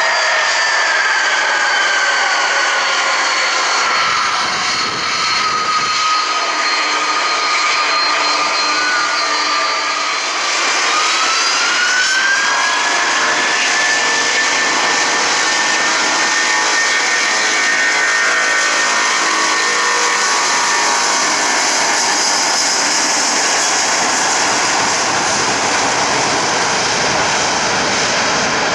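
Airbus A330 twin turbofan engines running at taxi power close by: a loud rushing jet noise with a high whine. The whine slides down in pitch, then rises about ten seconds in and holds steady as the engines spool up.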